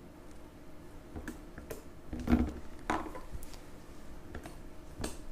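Homemade slime being kneaded by hand in its bowl: irregular sticky squishes and small clicks and knocks, the loudest about two and three seconds in.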